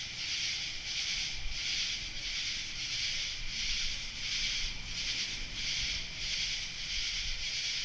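Night insect chorus on a cool summer evening: many insects calling together in a dense, high-pitched pulsing that beats about twice a second.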